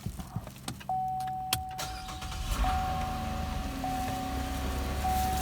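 A few sharp clicks, then the car's electronic warning tone sounding as one steady note that breaks off and restarts several times, with a low hum coming in behind it about halfway through.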